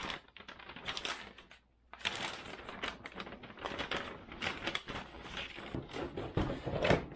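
Large printed paper instruction sheet rustling and crackling as it is handled and folded, with a short pause about a second and a half in. Near the end, hands handle the cardboard box and its foam packing insert.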